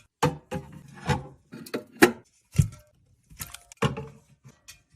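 Aluminium drink cans being set down and lined up in a mini fridge: a quick series of clinks and knocks, about two a second.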